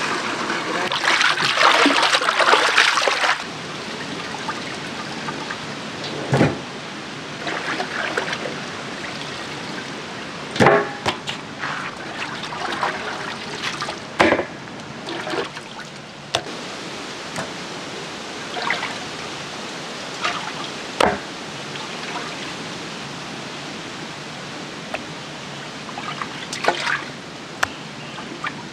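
Water poured from a steel bowl into a large metal pot, a steady rush for the first three seconds or so. Then hands slosh in the pot of water while raw chicken pieces are washed, with brief splashes every second or few.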